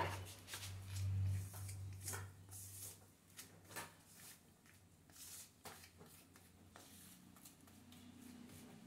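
Grout being rubbed by hand into the joints of ceramic wall tiles: faint, irregular scraping and rubbing strokes.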